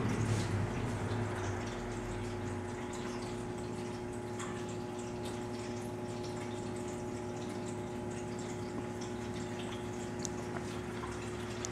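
Steady hum of a small electric appliance, with a few faint scattered ticks.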